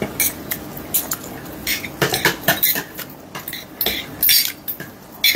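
Chopsticks and a ladle clinking against a stainless steel hot pot and bowls while food is scooped out, a string of irregular clicks and clatters.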